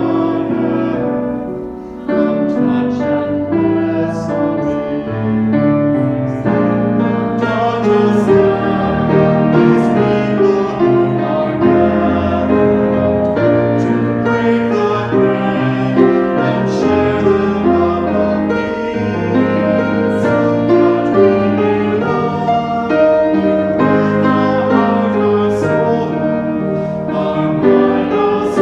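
Piano music playing held chords and sustained notes, a slow instrumental piece.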